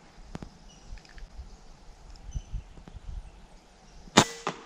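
A single shot from a Benjamin Marauder .22 PCP air rifle about four seconds in: one sharp crack, by far the loudest sound. About a third of a second later comes a fainter knock, the thump of the pellet striking the ground squirrel downrange.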